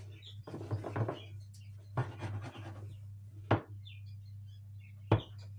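Soft scratching and rustling of grated kaşar cheese and pasta being pushed around in a glass baking dish, with two sharp knocks, one about three and a half seconds in and one near the end.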